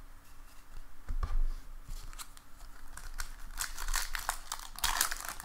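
Crinkling and tearing of a 2019 Bowman baseball card pack's wrapper being opened by hand. Scattered crackles early on turn into a dense run of sharp crinkles over the last two seconds or so.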